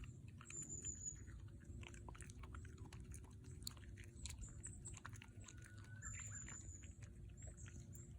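A Shiba Inu chewing a dog treat, with many short, crisp crunches.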